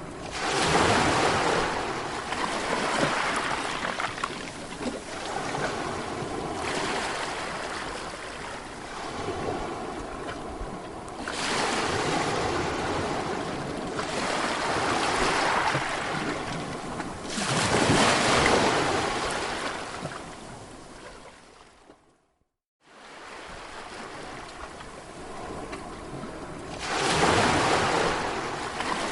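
Sea waves washing in, each wave swelling to a loud surge of rushing water and ebbing away every few seconds. The sound cuts out completely for about half a second roughly three-quarters of the way through.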